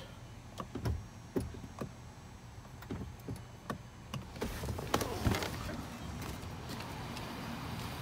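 Scattered knocks and clicks of someone getting out of a car and handling the phone, with a car door among them, then a steady hiss from about four seconds in.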